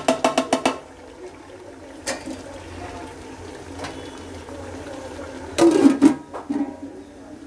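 A metal ladle taps several times in quick succession against an aluminium cooking pot, then a chicken curry sizzles and bubbles quietly in its separated oil on low flame. About six seconds in, a flat aluminium lid clanks loudly a few times as it is set down on the pot.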